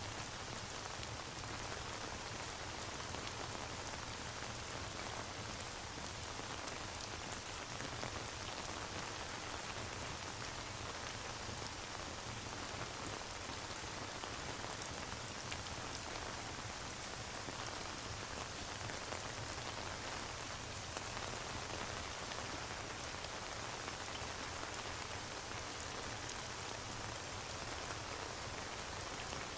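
Steady rain falling, an even hiss, mixed with the faint crackle of a fireplace.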